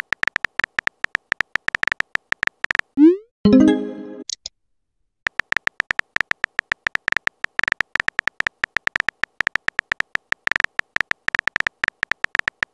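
Rapid keyboard key-click sound effects from a texting-story app as a message is typed. About three seconds in, a rising swoosh and a short chime mark a new message arriving, then the typing clicks pick up again.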